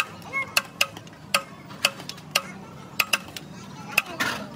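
Metal serving spoon clinking and scraping against a large aluminium biryani pot as rice is scooped out, a sharp ringing click about every half-second, sometimes two close together, with a longer scrape near the end.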